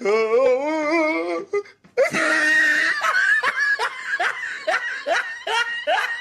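A person laughing hard: a long wavering laugh, then a run of short ha-ha pulses, about two or three a second.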